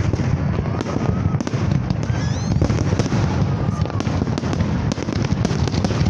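Large fireworks display at its height: a dense, continuous barrage of booming shell bursts and crackling, with no let-up.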